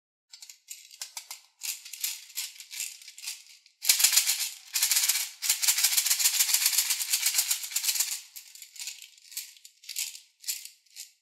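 Small round plastic beads rattling inside a small plastic toy baby bottle as it is shaken and tipped. They come as scattered clicks, then a dense clatter for about four seconds in the middle, then scattered clicks again.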